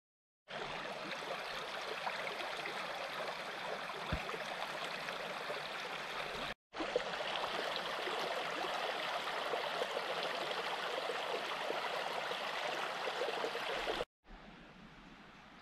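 Small woodland brook running and babbling steadily, in two stretches with a brief break about six and a half seconds in. Near the end it gives way to a much quieter steady hiss.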